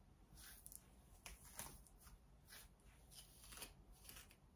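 Faint, irregular rustling and brushing strokes of a comb and hands working through a human-hair wig.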